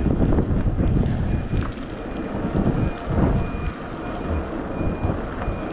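Wind on the microphone and street traffic make a steady low rumble. From about a second in, a vehicle's reversing alarm beeps evenly, about one and a half beeps a second.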